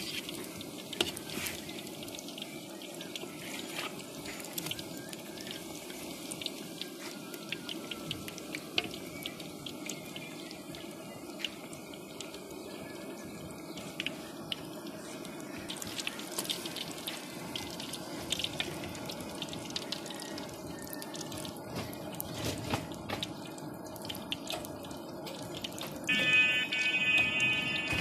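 Mughlai parathas shallow-frying in hot oil in a wide wok: a steady sizzle with many small pops and crackles. About two seconds before the end a loud pitched tone comes in over the frying.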